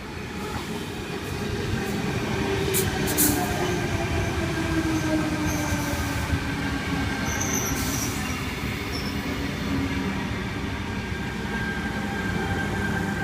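Sydney Trains Tangara electric multiple unit pulling into the platform: steady running noise with a whine that falls in pitch as the train slows, a few sharp clicks, and a thin, steady squeal in the second half.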